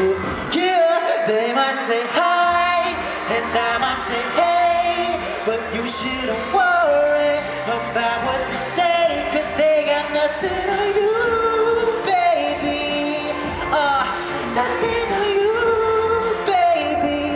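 Live pop song over the concert sound system: a male singer's voice carrying the melody over a backing track. The bass drops out for about two seconds near the start, then comes back in.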